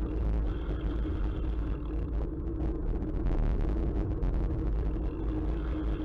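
Steady low rumble of wind and road noise on the microphone, with no distinct events.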